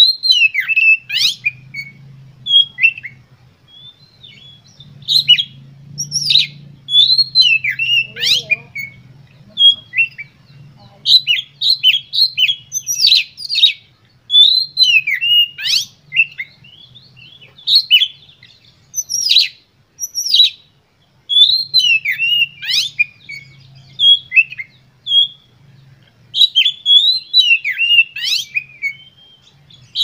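Oriental magpie-robin singing continuously in full song: quick runs of short, sweeping high whistles and chattering notes, many dropping in pitch, in bursts with brief gaps between them.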